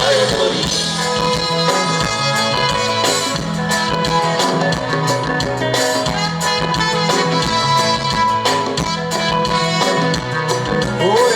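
Instrumental music with a steady beat, drums, guitar and sustained keyboard-like tones, played loud.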